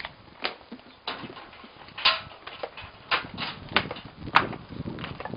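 Irregular sharp taps of a young goat's hooves on stone paving as it walks about.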